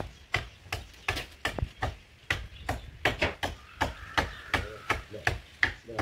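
Rapid, uneven series of sharp chopping knocks, about three to four a second.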